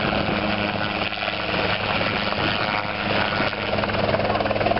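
Helisport CH-77 ultralight helicopter hovering low: a steady, fast beat from the main rotor over the engine's hum, growing slightly louder near the end.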